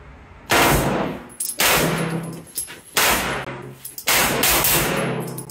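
Glock pistol with a ported barrel firing on full auto: four bursts of rapid shots, the first about half a second in.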